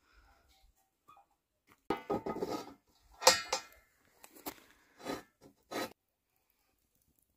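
Kitchenware being handled: a run of clinks and clatters starting about two seconds in, the loudest about three seconds in with a brief metallic ring, then a few lighter knocks.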